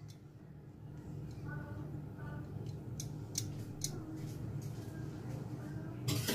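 Light clicks and knocks from a stand mixer's tilt-head and wire whisk being handled after the mixer has been switched off, over a low steady hum. A louder clatter comes near the end.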